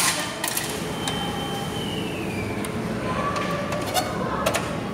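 Scattered clicks and knocks from a VendoCorp tissue and napkin vending machine as its dispensing flap is pushed open by hand, over steady background noise.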